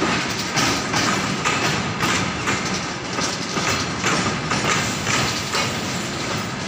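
Flatcars of a freight work train rolling past close by, their wheels clattering over the rail joints again and again.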